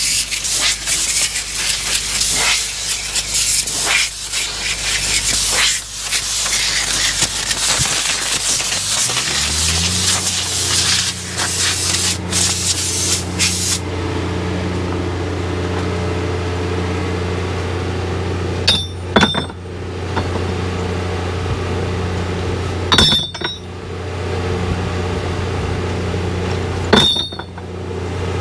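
Metal tools scraping and knocking on an excavator bucket's tooth adapters during a tooth change. About nine seconds in, an engine speeds up and then runs at a steady hum. Three sharp, ringing metal clanks come in the later part.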